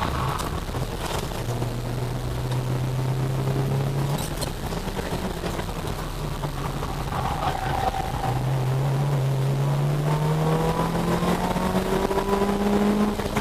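Small four-cylinder hatchback's engine heard from inside the cabin at speed on track: it holds steady revs, drops off about four seconds in, and from the middle on climbs steadily in pitch under hard acceleration.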